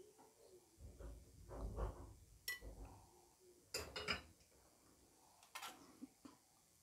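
Faint kitchen handling sounds: soft thumps of broccoli florets being dropped into a glass bowl, then a few sharp clinks and knocks, about 2.5, 4 and 5.5 seconds in, as the glass bowl and a knife are set against a plastic cutting board.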